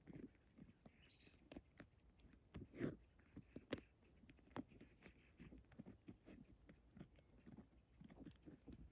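Bamboo rat gnawing and scrabbling in its burrow: faint, irregular crunching clicks.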